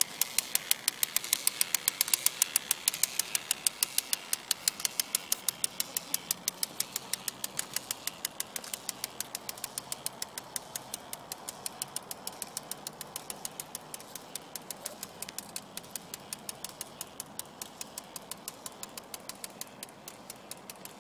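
Homemade paddle boat's K'nex motor-and-gear drive clicking in a steady rhythm of about four to five sharp plastic clicks a second as the paddle wheel turns, gradually fading as the boat moves away.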